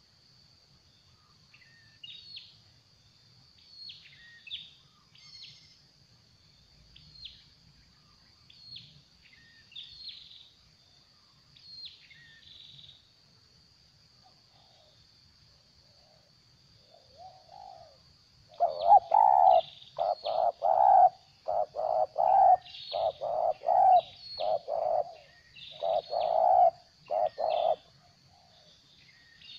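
Spotted dove cooing in a stuttering series: a run of short, loud, low coos, some in quick doubled groups, starting about two-thirds of the way through. Before that only faint high chirps of small birds are heard over a steady high-pitched drone.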